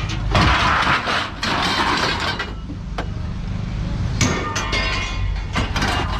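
Scrap metal thrown off a pickup bed, crashing and clattering onto a pile: two long crashes in the first couple of seconds, then several single clanks. A steady low rumble runs underneath.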